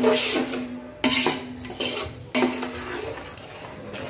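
Metal spoon stirring and scraping thick masala in a large metal cooking pot. It knocks against the pot four times in the first two and a half seconds, each knock ringing briefly, then scrapes more quietly.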